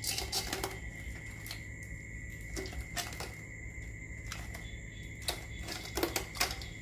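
Scattered light clicks and taps at uneven intervals, a few sharper ones near the end, over a steady faint high tone.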